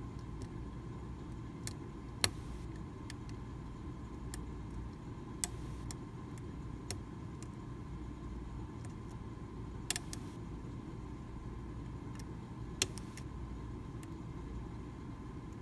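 Sharp little metallic clicks of a lock pick and tension wrench working the pin stack of a Medeco original mortise cylinder, a handful of single clicks at irregular intervals a few seconds apart, over a steady low background hum.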